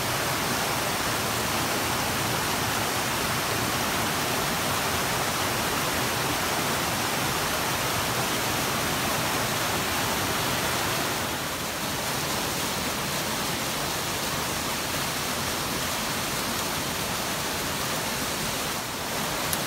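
Steady rush of water falling over a mountain waterfall: an even, unbroken hiss with no other sound on top, dipping slightly in level about eleven seconds in and again near the end.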